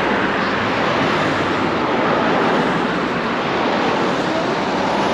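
Cars driving past close by in a steady stream: an even rush of tyre and engine noise.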